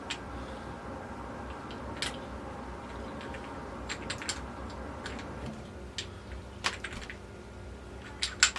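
Scattered light clicks and taps from transmission parts being handled and test-fitted, a few seconds apart with a quick cluster near the end, over a steady low hum.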